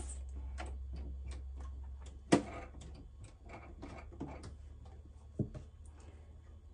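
Irregular light clicks and taps as fabric is set under a JUKI sewing machine's presser foot, with sharper clicks about two seconds in and again after five seconds. These are the sounds of readying a seam: the presser foot and needle coming down, with the machine not yet stitching.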